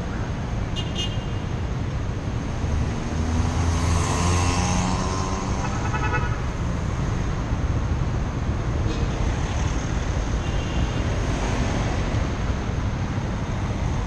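City road traffic: cars driving through an intersection over a steady low rumble, with one vehicle's engine rising in pitch as it accelerates past about four seconds in. Picked up by a helmet-mounted action camera's microphone.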